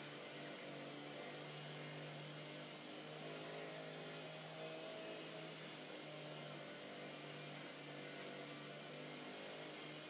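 Faint, distant lawn mower engine running steadily, its hum swelling and easing every second or two, over a soft outdoor hiss.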